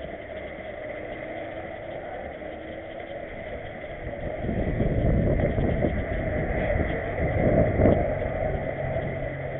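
Road traffic: a car passing, its rumble swelling from about halfway through and loudest near the end, over steady street noise. It is picked up by an action camera strapped to a dog's back.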